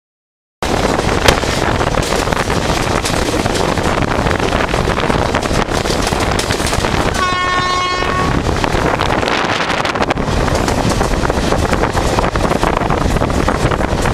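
Steady rumble and rush of an express train running at speed, with one sharp click about a second in. A little past the middle, the WAP4 electric locomotive's horn sounds once, a single blast about a second long.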